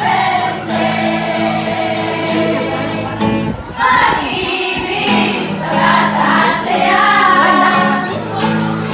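A group of young people singing a song together, accompanied by acoustic guitar.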